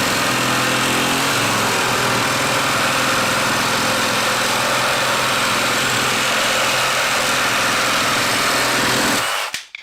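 HART 20-volt cordless reciprocating saw cutting through wood with the orbital action off, the blade going straight back and forth. It runs loud and steady under load, then stops abruptly about nine and a half seconds in as the cut finishes.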